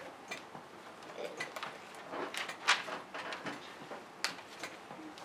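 Sheets of paper rustling and crinkling as they are handled, with scattered light clicks and taps; the sharpest come about two and a half seconds in and again about four seconds in.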